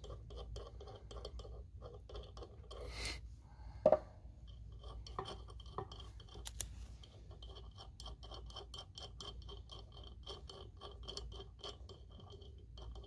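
Replacement spindle assembly being turned and shifted by hand on a steel Cub Cadet LT1040 mower deck: scraping and rubbing, one sharper knock about four seconds in, then a quick, fairly regular run of light clicks.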